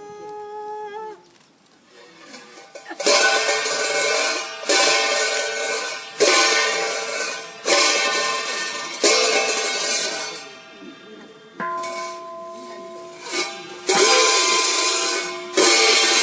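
A chanted note trails off, then metal percussion is struck in a steady beat about every one and a half seconds. Each stroke rings and dies away slowly, as in Buddhist ritual music.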